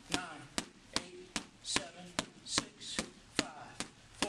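Boxing gloves striking focus mitts in a steady, quick rhythm: about ten sharp smacks, roughly two or three a second.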